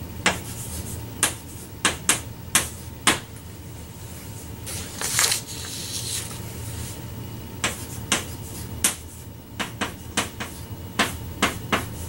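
Writing on a lecture board: a string of sharp, irregular taps, about twenty in all, with a short scratchy scrape about five seconds in.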